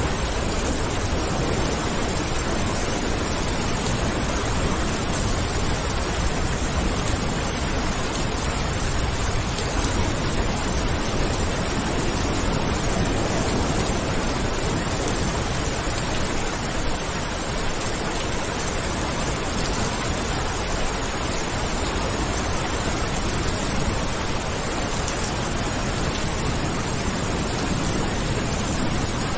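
Steady heavy rain, a dense even hiss with no let-up or change.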